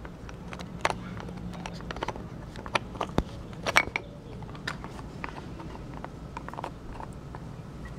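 Siberian husky gnawing a bone: irregular clicks and cracks of teeth on the bone, the loudest about three to four seconds in.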